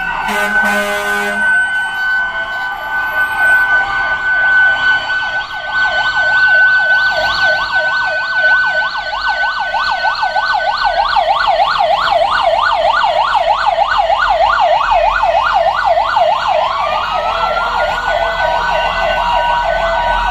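Several fire service vehicle sirens sounding together. One holds a steady high wail for the first half while another cycles in a rapid yelp that takes over for the rest, and a wail winds up again near the end.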